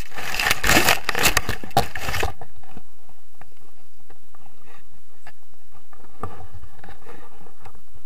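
Handling noise: harness straps and clothing rubbing and scraping against the camera for about two seconds, then quieter rustling with a few light knocks.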